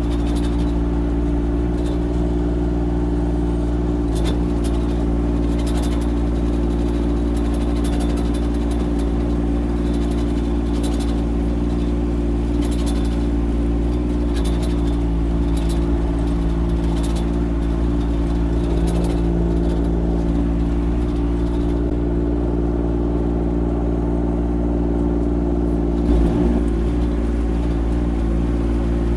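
Diesel engine of a Kymron XH20d mini excavator running steadily under light, even work, with scattered light clicks and clatter and a brief knock near the end.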